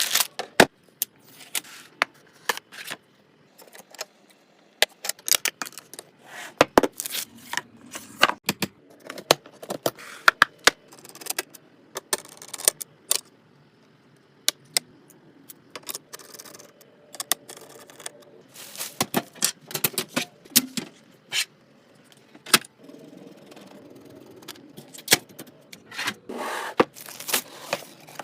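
Computer parts being handled and fitted together during a PC build: many irregular sharp clicks, taps and light knocks of metal and plastic, with scraping and rustling between them.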